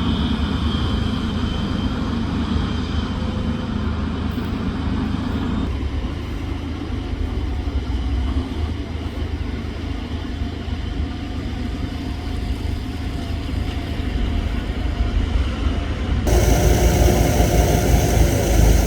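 Engine of construction machinery running steadily with a low rumble while a foundation is being dug. The sound's character changes abruptly about six seconds in and again near the end.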